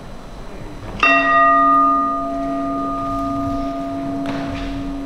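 A metal bell struck once about a second in, ringing on: its higher overtones die away within a second or two, while a low hum keeps sounding steadily.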